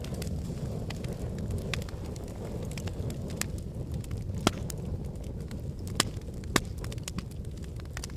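Wood fire burning in a fireplace: a steady low rumble with frequent crackles and sharp pops, the loudest about four and a half, six and six and a half seconds in.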